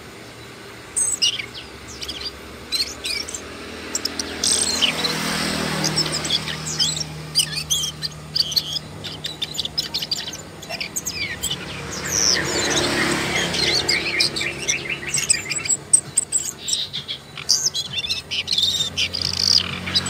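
Asian brown flycatcher singing a rapid, high-pitched jumble of thin chirps and twitters. A low hum swells in the background twice.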